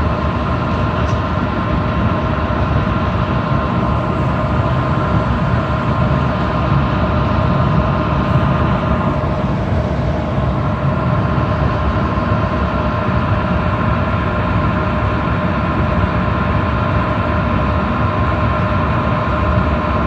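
Gas furnace running: burners firing with a steady rumble while the inducer (combustion) blower and main blower run, several steady whining tones over it. The burner flames are rolling back in the burner box instead of drawing into the heat exchanger tubes, which the owner takes for a blocked or holed heat exchanger.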